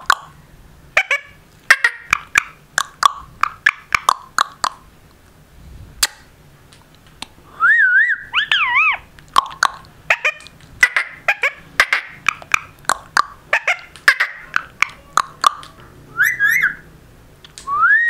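Indian ringneck parrot clicking rapidly and giving short chirps, with wavering whistles about eight seconds in and again near the end.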